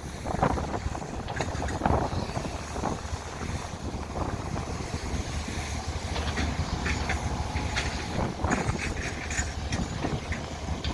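Excavator's diesel engine running steadily, with scattered short knocks over it.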